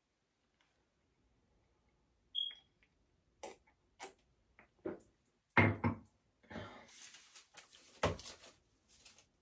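A short high beep, then scattered clicks and knocks, the loudest a low thump a little past halfway, followed by rustling and clattering of small objects being handled.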